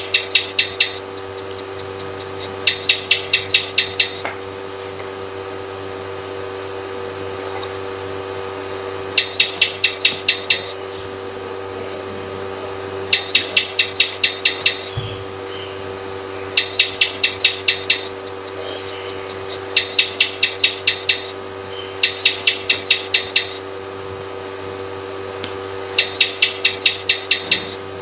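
Lizard chirping: repeated runs of about eight quick, sharp clicks, each run lasting about a second and a half, coming every few seconds over a steady background hum.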